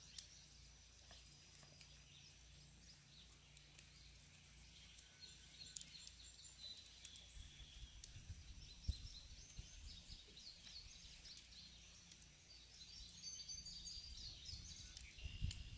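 Near silence: faint outdoor ambience with soft, scattered clicks and rustles of honeysuckle vines being woven by hand, and faint bird chirps near the end.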